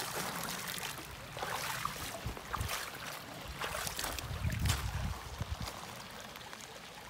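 Water pouring off the edge of a plastic gold pan and sloshing in it as a sand concentrate is washed down, with scattered splashes into a shallow creek. A brief low rumble comes about four and a half seconds in.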